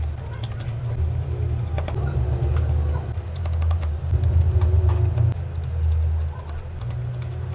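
Precision screwdriver clicking and scraping against the tiny screws and metal connector bracket inside an iPhone 11 Pro Max as the screws are undone: a scatter of light, irregular ticks. A steady low rumble runs underneath.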